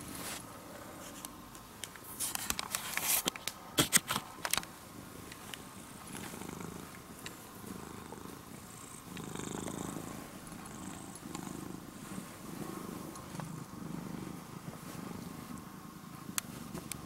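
Domestic cat purring close up, a low rumble that swells and fades about once a second with its breathing. Between about two and five seconds in, a cluster of sharp rustling clicks is louder than the purr.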